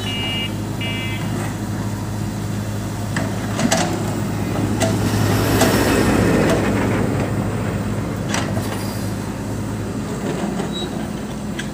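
JCB backhoe loader's diesel engine running steadily under load while the backhoe digs, with sharp metallic clanks from the arm and bucket and a louder swell of the bucket working the soil around the middle. Two short bursts of high beeping come in the first second or so.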